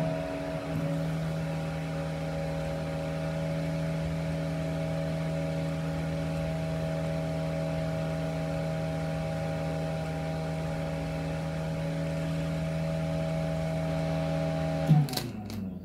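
Nidec BETAV TA450DC 12 V dual-ball-bearing fan running at full speed: a steady hum with a whine on top. About fifteen seconds in the power is cut with a click, and the fan's tone falls away as it spins down.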